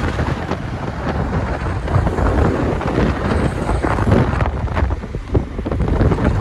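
Wind buffeting the phone's microphone while riding pillion on a moving motorbike, with road and traffic noise underneath.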